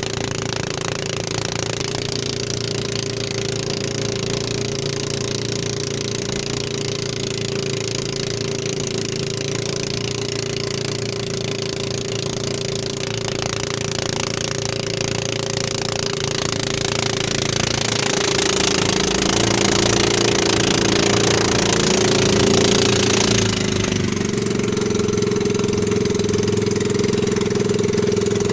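Outrigger boat's engine running steadily under way, a constant droning note that wavers and settles slightly higher in pitch late on. A broad rushing hiss swells over it for several seconds near the end and drops away abruptly.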